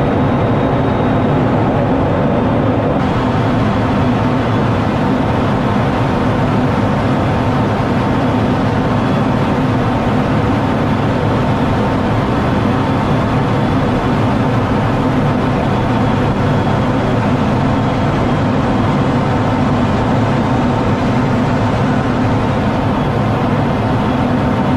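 Steady noise inside the cockpit of an F-16 fighter in flight: the jet engine and the airflow rushing over the canopy, with a faint high steady tone over it.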